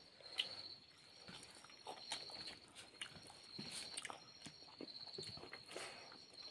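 Soft chewing and lip-smacking of people eating with their hands, a few wet smacks spread through, over a steady high-pitched trilling of insects that breaks into short runs.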